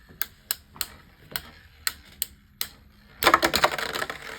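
Two Beyblade Micros spinning tops clacking against each other in a small plastic stadium, with separate sharp clicks about every half second. About three seconds in they break into a rapid, louder clatter of hits.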